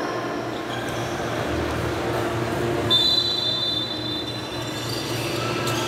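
A referee's whistle gives one steady, shrill blast about three seconds in, lasting just over a second, over the gym's steady low hum.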